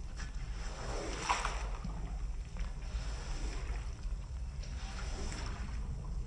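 Steady low motor hum with water swishing and splashing in surges, the loudest about a second in, typical of a rug being machine-washed.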